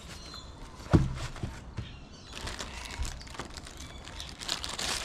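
Handling of a paintless dent repair kit's tap-down hammer and its screw-on heads: a sharp knock about a second in, a few lighter knocks, then scattered clicks and rattling of small plastic and metal parts.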